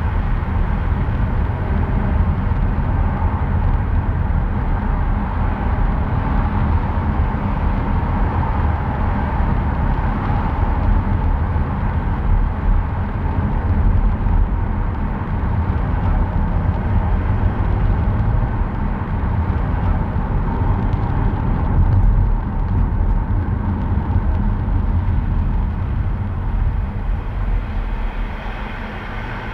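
A car driving: steady low rumble of tyre and engine noise, easing off a little near the end.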